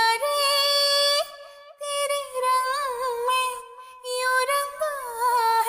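A woman singing unaccompanied, slow held notes with small ornamental turns and glides, broken by two short pauses. By her own account her voice is cracked from a cold and coughing.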